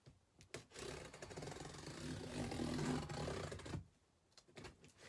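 A blade slitting the packing tape along the top seam of a cardboard box: a scratchy cutting sound of about three seconds that grows louder, then stops abruptly. A few light taps of the cardboard flaps follow.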